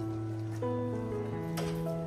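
Background music of slow sustained notes that change every half second or so, with a brief burst of noise about one and a half seconds in.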